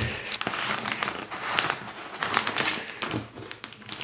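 Rustling and crinkling of a roll of shelf-lining contact paper being handled, with irregular crackles throughout.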